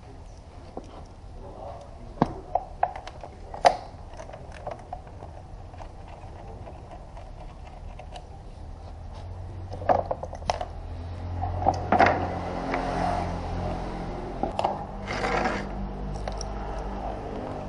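Scattered clicks and knocks of a Toyota Corolla Altis radiator and its plastic electric fan shroud being handled and separated on a concrete floor, with a longer scraping sound near the end as the parts are moved. A low steady hum runs underneath.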